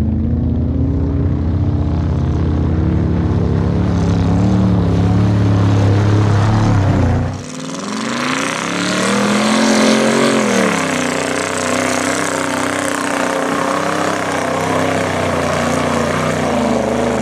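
Pickup truck's engine running hard through a mud bog. It holds a steady high rev, drops suddenly about seven seconds in, then revs rise and fall over a hiss of mud and water thrown off the tyres.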